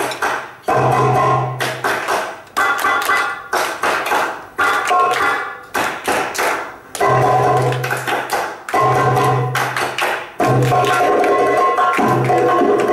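Oriental belly-dance music played over a PA loudspeaker: sharp drum strikes in a rhythm, recurring held low notes and a melody line above them.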